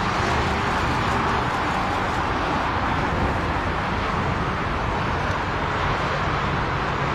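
Boeing 747 freighter's four jet engines heard at a distance on the runway: a steady, even jet noise with a low rumble beneath it, holding one level throughout.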